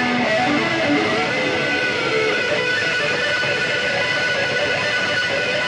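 Electric guitar playing a melody: a few quick notes, then long held notes.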